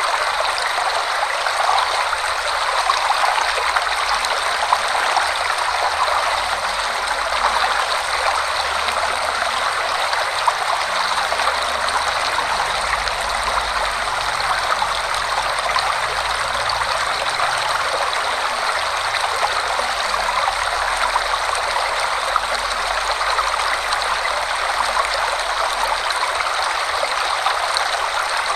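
Waterfall rushing steadily in a forest, an even wash of falling and splashing water with no letup.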